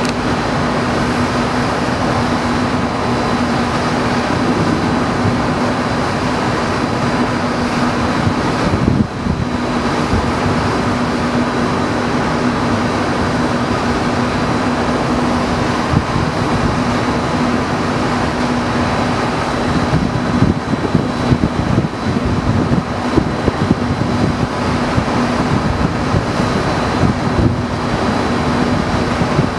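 A steady mechanical hum with a constant low drone runs throughout. From about two-thirds of the way through, irregular sharp booms of distant fireworks bursting break over it.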